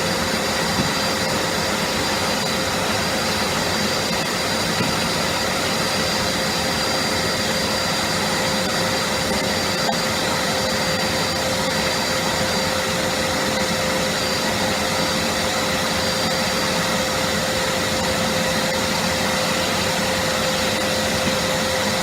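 Vacuum cleaner running steadily, a constant whine over a rushing air noise.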